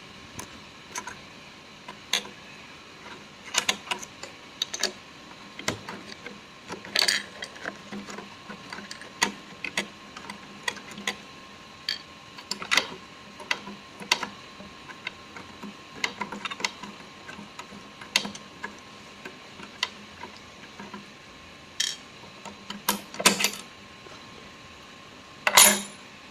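Irregular light clicks, taps and scrapes of a small screwdriver on a sewing machine's metal screws and plates as they are loosened and opened for cleaning, with a louder scrape near the end.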